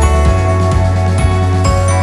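Background music with a steady beat of about two knocks a second, sustained notes over a bass line.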